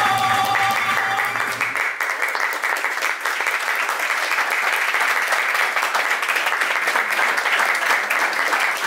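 A violin holds a sustained note that stops about a second and a half in, as audience applause swells and then carries on steadily.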